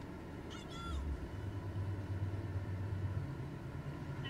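Low steady engine drone that grows louder about a second in, with a brief high-pitched call just before.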